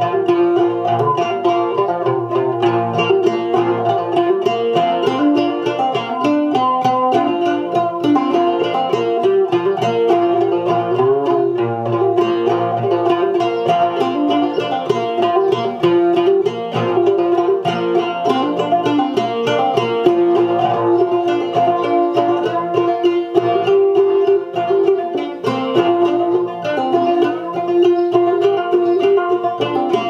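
Amplified copper tea kettle banjo with flush frets, picked through an amp with chorus added, playing a steady run of quickly picked melodic notes.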